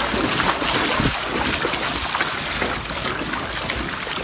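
Shallow river water rushing steadily around the legs, an even noisy wash with a few faint knocks.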